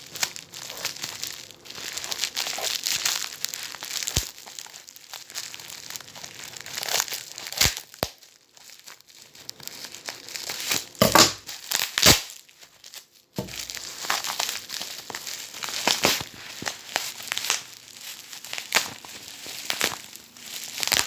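Parcel packaging crinkling and rustling as it is handled and cut open, with a few sharp clicks along the way.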